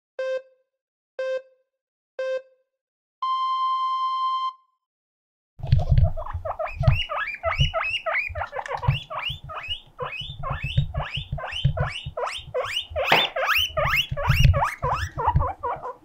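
A countdown of three short beeps and one longer, higher beep, then, about five and a half seconds in, a guinea pig's loud siren-like wheeking: a rapid run of rising squeals, about three a second, with low thumps beneath. The owner takes it for a lonely call to the other guinea pig.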